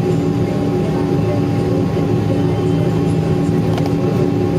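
Airliner's engines running at taxi power, heard from inside the passenger cabin: a steady drone with a few held tones. A faint click near the end.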